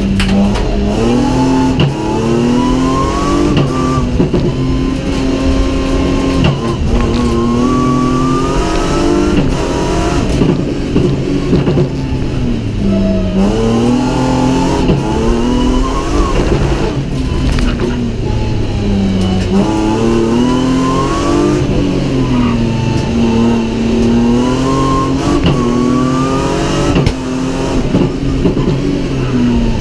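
BMW 323ti's straight-six engine heard from inside the stripped-out cabin, revving up and falling back again and again as the car accelerates hard and lifts off through the slalom.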